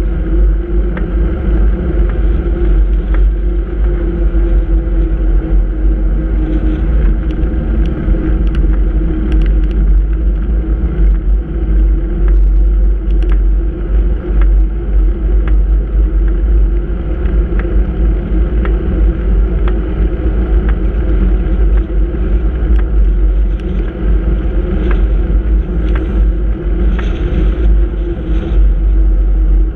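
A small vehicle engine runs at a steady cruising pace, a constant hum with a heavy low rumble of wind and road on the camera's microphone.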